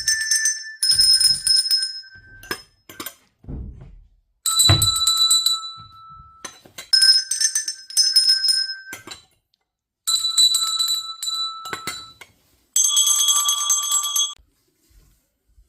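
Tuned bells played one note at a time in a slow, simple melody: about six notes of different pitches, each ringing for one to two seconds before it is damped. A few soft thumps sound among the first notes.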